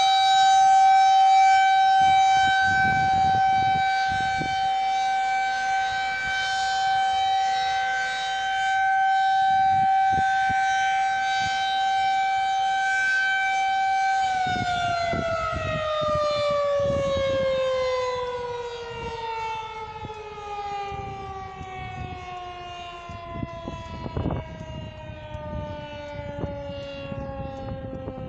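Civil defense tornado warning siren sounding a steady single-pitch alert tone that slowly swells and fades in loudness, then, about halfway through, winding down, its pitch falling steadily as the test ends. Intermittent low rumbles run underneath.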